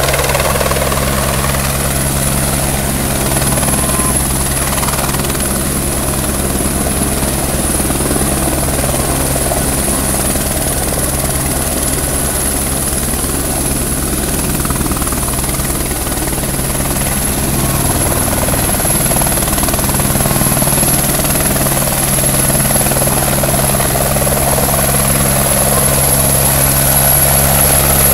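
Single-engine turbine helicopter hovering low over a river while filling a Bambi Bucket: a steady rotor beat with a high turbine whine above it, getting somewhat louder near the end as it comes closer.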